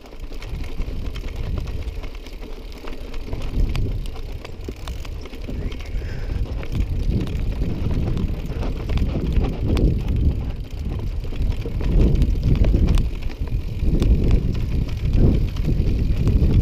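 Bicycle riding over a rough dirt trail, with tyres and frame rattling unevenly and wind rumbling on the microphone.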